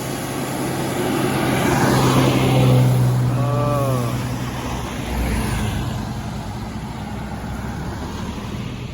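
A vehicle drives past through floodwater on the road, its tyres hissing through the water, swelling to its loudest about two to three seconds in and then fading. A steady engine hum runs underneath, with a short wavering pitched sound near the middle.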